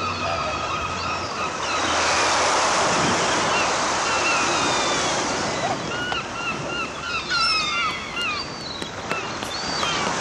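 Steady rush of wind and surf on the microphone, loudest in the first half. About six seconds in comes a quick string of short, repeated bird calls, with a few more near the end.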